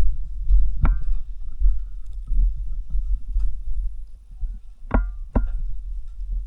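Three sharp, ringing knocks: one about a second in and two close together near the end. Beneath them runs a steady low rumble of a moving body-worn camera.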